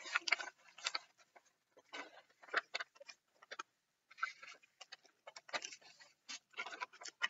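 A sheet of paper rustling and crinkling as it is folded and creased into a paper airplane's wing, in irregular short crackles and taps.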